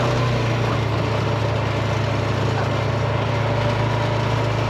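Motor vehicle engine running steadily with a low, even hum.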